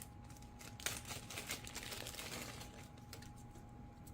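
Faint handling noise: small plastic clicks and rustling as a battery pack and its plug are fitted into an RC plane's foam battery compartment, with a sharper click about a second in.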